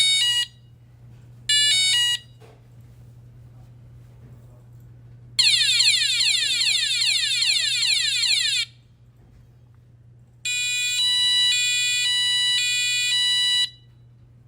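The buzzer of a DM-45F2022 sound effect module plays its built-in alarm effects one after another, with short pauses between them. First come two short beep groups, then a fast run of falling electronic sweeps for about three seconds, then a two-tone alarm that switches back and forth between two pitches for about three seconds.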